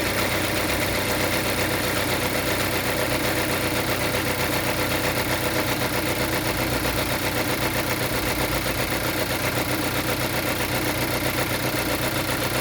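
Geely Coolray engine idling steadily with a fast, even ticking running through it: an extraneous engine noise that the owner takes to be abnormal.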